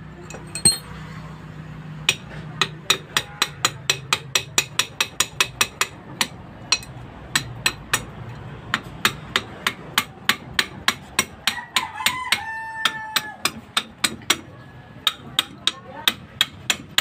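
An adjustable wrench striking the handle linkage of a cast-iron hand pump, sharp metal-on-metal knocks at about three a second with two short pauses, knocking the joint loose to take the pump apart. A rooster crows once partway through.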